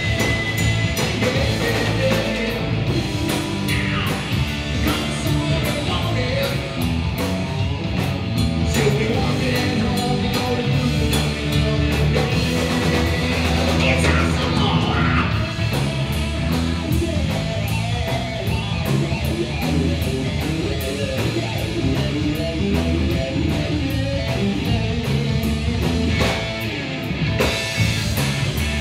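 Rock band playing live: electric guitars over a drum kit, with cymbal strokes running all through.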